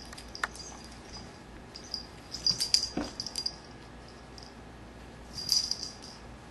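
Two cats scuffling on carpet, with the metal tag on a cat's collar jingling in short bursts, loudest about two and a half to three and a half seconds in and again about five and a half seconds in. A dull knock comes about three seconds in.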